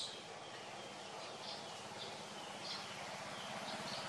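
Faint outdoor background of short, high bird chirps at irregular intervals, over a steady low hum.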